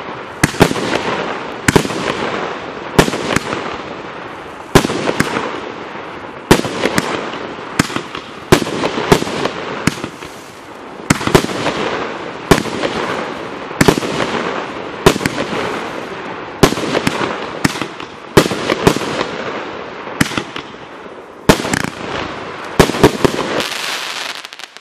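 A 21-shot mixed-effect fireworks cake firing in sequence: a loud report about once a second as each shot lifts and breaks, with dense crackling between the reports. It stops shortly before the end.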